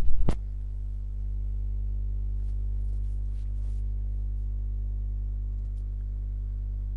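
A steady low electrical hum, typical of mains hum picked up by the recording, starting after a click in the first half second.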